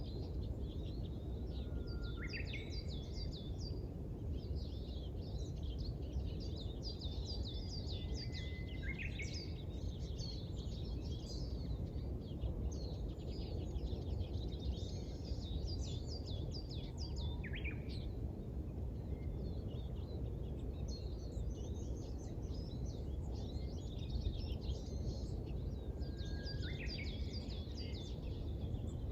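Small songbirds chirping and twittering at dawn in quick high runs, now and then a single sweeping call, over a steady low background rumble.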